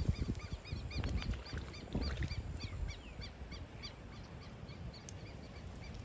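A bird calling in a steady series of short chirps, about three a second, over low wind rumble on the microphone that eases after the first two seconds.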